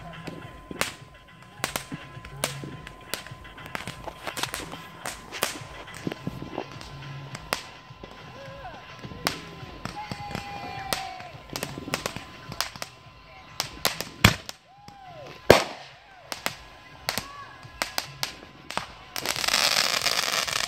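Fireworks going off: a scatter of sharp pops and crackles throughout, with two loud bangs a little past the middle. Near the end a firework launches with a rushing hiss lasting about two seconds as its trail of sparks climbs.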